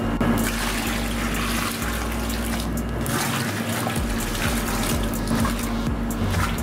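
Cold water pouring in a thin stream from a container into a mixer bowl of flour, a steady splashing trickle, with a steady low hum underneath.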